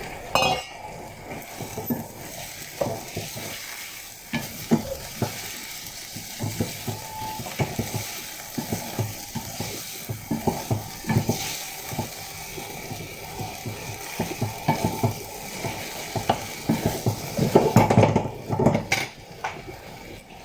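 A cooking utensil stirring chicken and mushrooms in a kawali over a steady sizzle, with repeated knocks and scrapes against the pan and a quick run of knocks near the end.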